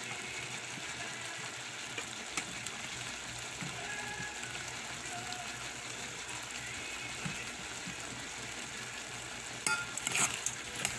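Shrimp sizzling in their sauce in a rice cooker's pot, a steady hiss. About ten seconds in, a spatula starts scraping and knocking against the pot as the shrimp are stirred.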